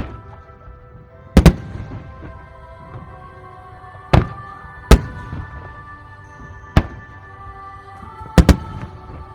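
Fireworks shells bursting: sharp bangs at irregular intervals, some in quick pairs, over music with held notes.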